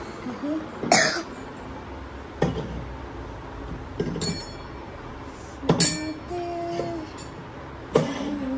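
Bronze (kansa) goblets being set down on a cabinet shelf one at a time: a sharp clink or knock every second or two, some ringing briefly, five in all.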